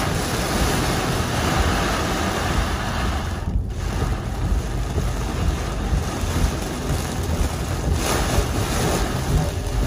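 Heavy thunderstorm rain and wind beating on a car, heard from inside as a steady, dense rush of noise with a deep rumble beneath, briefly thinning about three and a half seconds in.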